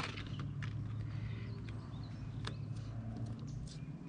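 Handling noise from an adhesive-backed EVA foam deck pad: paper backing crackling as it comes away, and the foam sheet rustling as it is laid and pressed onto the aluminum boat deck. There are scattered small crackles and clicks over a steady low hum.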